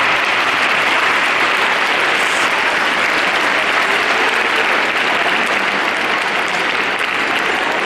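Large audience applauding steadily, a dense even clapping that holds without a break.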